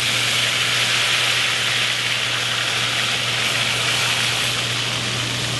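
Hot olive oil poured from a small saucepan onto chopped tomato, garlic and vinegar in a stainless steel bowl, sizzling steadily as it blisters the tomatoes, over a steady low hum.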